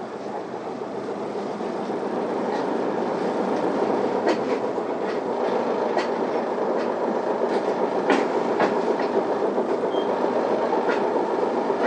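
Cabin of an Isuzu Erga city bus pulling away: engine and road noise building over the first few seconds, then running steady. A few sharp rattles or clicks cut through about four, six and eight seconds in.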